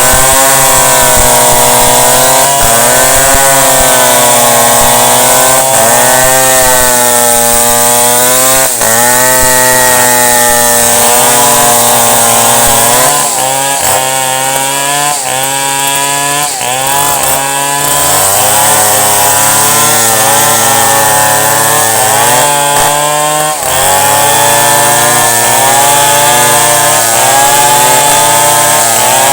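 Chainsaw running at high revs and cutting wood, its engine pitch wavering up and down as the chain bites and frees in the cut. The revs dip briefly a few times in the middle, then pick back up.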